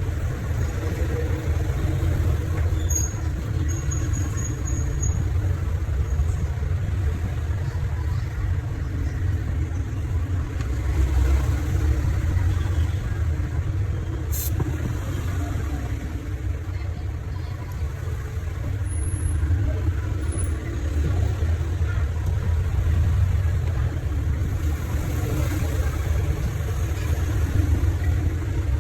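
Steady low rumble of background noise, with a single sharp click about halfway through.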